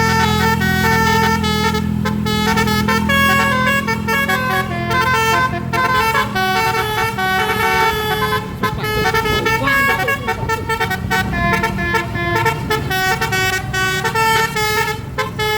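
Basuri telolet multi-tone bus horn playing a tune of short, stepping notes. A steady low hum runs underneath for about the first six seconds.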